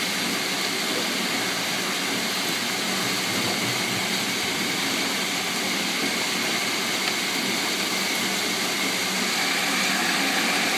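Heavy hailstorm: a steady, dense roar of hailstones pelting down, with no let-up.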